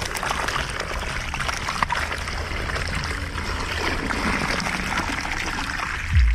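River water trickling and splashing steadily, with many small splashes.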